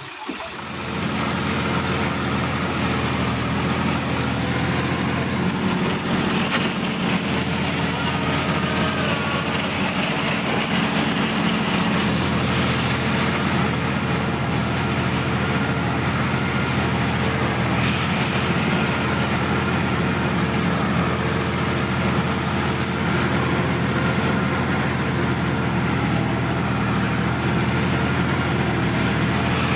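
Sonalika DI-50 RX tractor's diesel engine running steadily as the tractor drives across a grass field, heard close up from the driver's seat.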